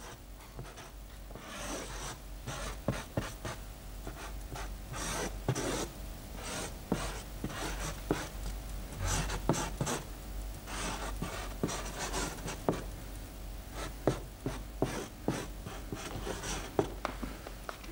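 Felt-tip marker scratching and rubbing across a large drawing sheet in quick, irregular strokes as a cartoon is drawn, over a low steady hum.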